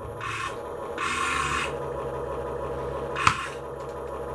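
Small radio-controlled Caterpillar construction vehicle working its shovel against a toy car. Rough plastic scraping and rubbing sounds the car makes as it is pushed and dragged sit over a steady low hum, with a sharp click about three seconds in.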